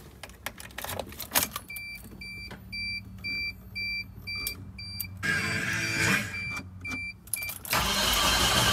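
Tracker cold start after about three weeks of sitting: a few key clicks, then the dashboard warning chime dinging about twice a second. About five seconds in the starter cranks for roughly two and a half seconds with the chime still going, and near the end the engine catches and runs, so the battery still has enough charge to turn it over.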